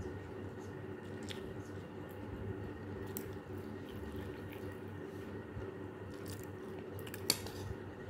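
Steady low hum with a few faint scattered clicks. About seven seconds in comes a sharper click as a metal spoon touches the ceramic plate of rice.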